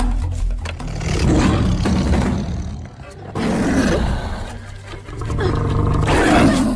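Mountain lion snarling and roaring in a film soundtrack, in three loud bursts over a low rumble.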